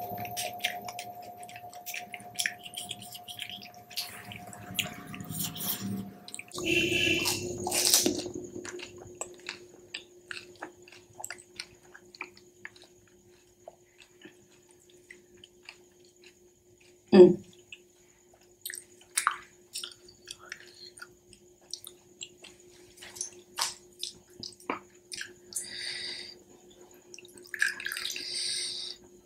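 Close-up eating sounds of pani puri: crisp semolina shells crackling and wet chewing in a string of small clicks, with one much louder crunch partway through. Near the end, spiced water splashes and drips as a puri is dipped in the bowl and lifted out.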